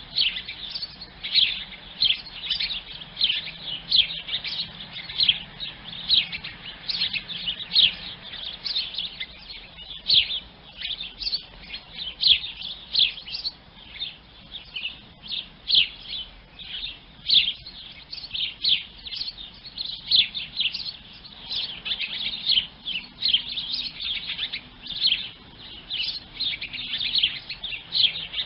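Sparrows chirping: a steady stream of short, high chirps, several a second.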